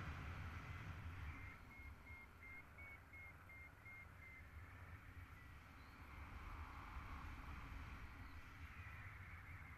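Wind buffeting the microphone of a paraglider's action camera in flight, a low rumble. From about a second in, for about three seconds, a faint rapid run of high beeps from a flight variometer.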